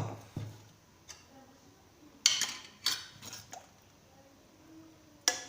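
A spoon scraping and knocking against a cooking dish as sauce is spooned out: a few sharp knocks, then three short scrapes in the middle and one more knock near the end.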